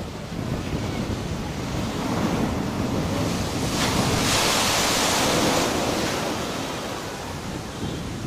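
Storm surf breaking against a concrete sea wall: a steady rush of waves swells into a big crash and spray about four seconds in, the loudest moment. It then eases into water washing back across the flooded walkway.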